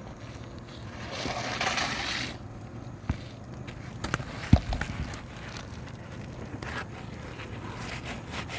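Scraping and crackling of asphalt roof shingles being handled and pried during a repair, followed by a few sharp knocks. The loudest knock comes about four and a half seconds in.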